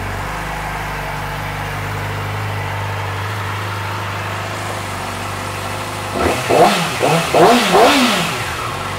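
2008 Yamaha YZF-R6's inline-four engine idling steadily, then revved in about four quick blips of the throttle, each rising and falling in pitch, starting about six seconds in.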